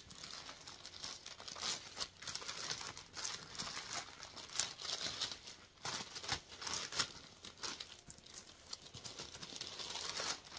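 Clear plastic wrapping crinkling and rustling in the hands as a handbag is taken out of it, in a steady run of irregular crackles.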